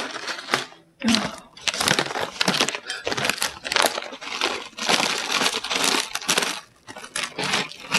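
A snack pouch crinkling and being shaken while freeze-dried fruit crisps tumble out and click and rattle onto a hard tabletop.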